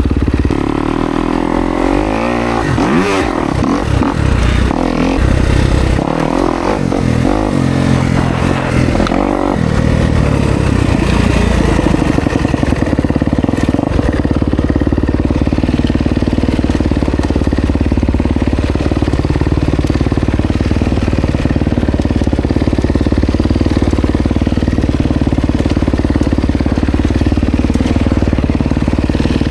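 Kawasaki KX250X four-stroke single-cylinder dirt bike engine revving hard, its pitch rising and falling repeatedly for about the first ten seconds, then running at a steadier, more even speed.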